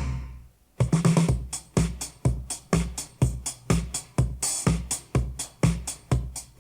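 Electronic disco music with a drum machine, played back through a pair of Klipsch R-15PM powered bookshelf speakers. One loud hit dies away, then a steady kick-drum beat of about two a second starts just under a second in.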